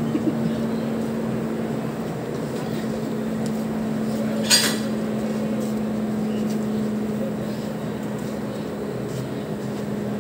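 Steady mechanical hum with a constant low tone from a stationary locomotive running at standstill by its coupler end. A short burst of hiss cuts in about four and a half seconds in.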